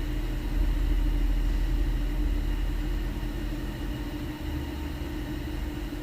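Ram ProMaster 3500 van's engine running at idle, a steady low rumble that swells slightly about half a second in and then settles.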